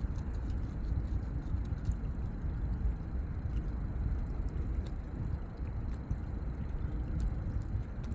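Steady low outdoor rumble, with a few faint, scattered ticks above it.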